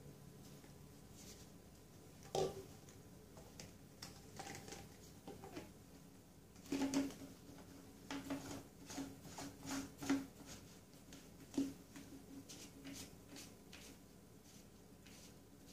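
Plastic drain-pipe parts of a flexible P-trap being handled and fitted together: hollow knocks and clicks of the plastic pieces, loudest about two and a half and seven seconds in. A run of lighter ticks follows near the end as a plastic slip nut is turned by hand.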